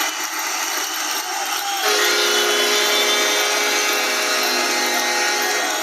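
Pensacola Ice Flyers goal horn in a hockey arena: a steady multi-tone blast starts about two seconds in and holds for about four seconds over loud crowd noise.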